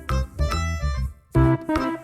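Background music: a light keyboard tune with a steady bass beat, pausing briefly just past the middle.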